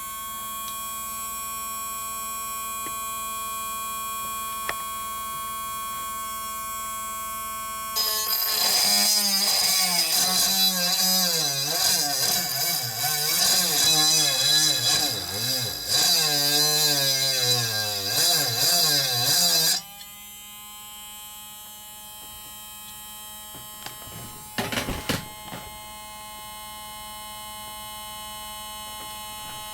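Small battery-powered DC motor running freely with a steady whine. From about eight seconds in, for some twelve seconds, a hacksaw blade rests on its spinning shaft, giving a loud scraping grind while the motor's pitch wavers and sags under the load. It then runs freely again, with a few brief clicks near the end.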